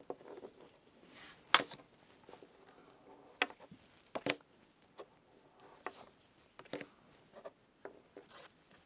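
Stiff photo cards being handled and laid down on a table: a string of light taps and clicks, the sharpest about a second and a half in.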